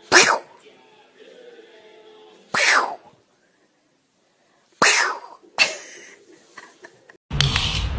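A pet sneezing four times, short sharp sneezes a second or two apart. Near the end a steady noise with a low hum comes in.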